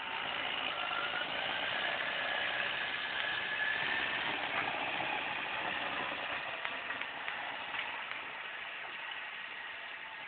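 John Deere 6310 tractor's four-cylinder diesel engine running as it drives off carrying a loaded front-loader bucket of grass silage, with a whine that rises in pitch over the first few seconds. The sound fades steadily toward the end as the tractor moves away.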